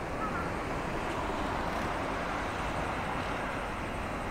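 Steady rumble of road traffic on the suspension bridge overhead, an even noise with no distinct events.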